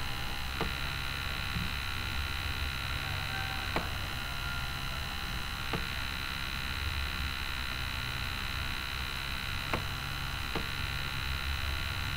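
Steady electrical hum and hiss on the microphone, with about five faint, widely spaced clicks.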